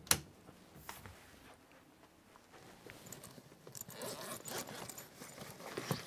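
Handling noise from a laptop charger and its cable: a sharp click right at the start, a smaller click about a second in, then light rustling and small clicks over the last three seconds.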